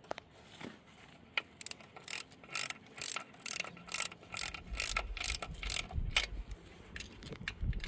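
Hand ratchet wrench clicking as water pump bolts are run in, about four clicks a second from about a second and a half in.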